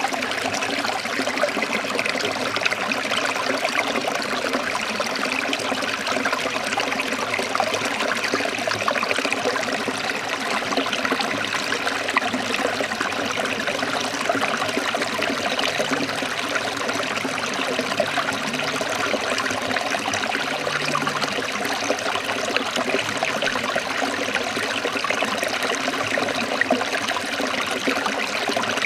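Running water flowing steadily, with an even, unchanging rush.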